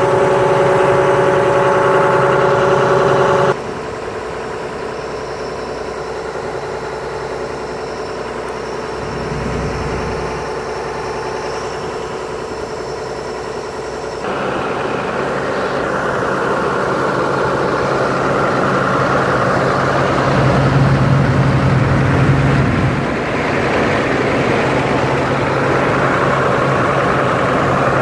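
Diesel engine of a Doosan Solar 140LC-V hydraulic excavator idling steadily. Its level drops suddenly a few seconds in and rises again about halfway through.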